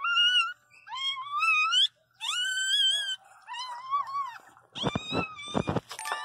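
Newborn Pinscher puppy crying in a series of short, high, rising squeals, about five in all, with a noisier scuffling burst near the end.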